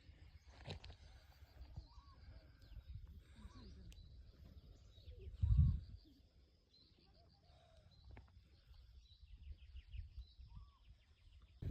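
Faint outdoor ambience: a bird repeating a short curling call note about once a second, over a thin, continuous high chatter. A low thump comes about five and a half seconds in.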